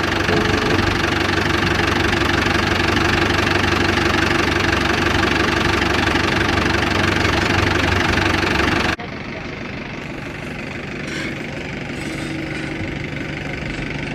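Tractor diesel engine running steadily. About nine seconds in, the sound drops suddenly to a quieter engine running.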